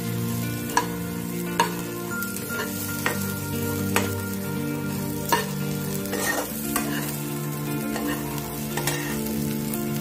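Steel spoon stirring chickpeas and onions frying in a non-stick kadai: a steady sizzle with scraping, and sharp clinks of the spoon against the pan at irregular intervals.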